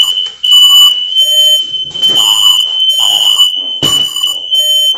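Home smoke alarm sounding a loud, steady, shrill tone, with a knock about four seconds in. It has been set off by the oven, which the cook reckons needs cleaning out.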